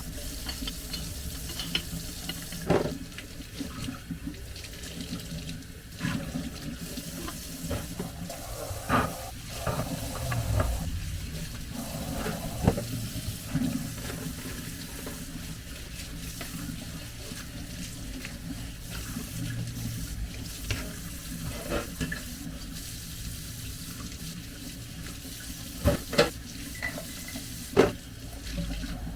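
Tap water running into a kitchen sink while dishes are washed by hand, with short clinks of dishes knocking together now and then.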